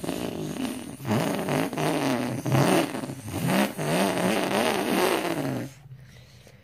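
A person's mouth-made imitation of a car engine revving through the gears, meant as a Nissan GT-R R35: a buzzing vocal drone whose pitch wavers and climbs in about three runs, breaking between them, then stops abruptly near the end.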